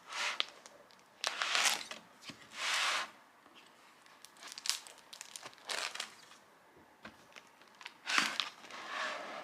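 Crinkly packaging being handled and torn in a run of short, separate bursts, the loudest about a second and a half in and again near the end.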